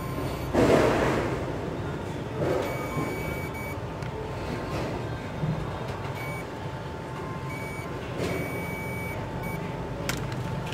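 Digital multimeter beeping in short, high, steady tones several times as its probes touch test points on a motherboard, over steady background noise. A loud rush of noise comes about a second in.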